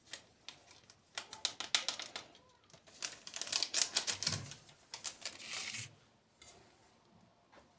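Paper baking-powder sachet crinkling and being tapped over a bowl as its powder is emptied out, in two spells of rapid crisp ticks, the second and longer ending a little before the close.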